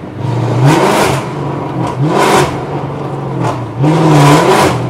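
Chrysler 300's engine and exhaust revved hard three times while driving, each rev sweeping up in pitch and falling back, loud, over a steady lower engine hum between revs.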